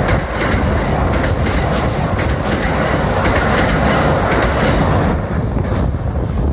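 Kintetsu electric train passing close at speed, a steady rumbling rush with the wheels clattering over the rail joints. The sound eases a little after about five seconds.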